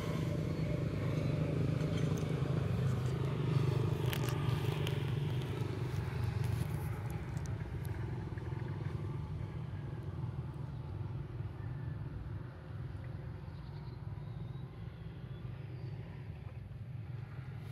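An engine running steadily with a low hum, slowly fading over the second half, with a few faint clicks about four seconds in.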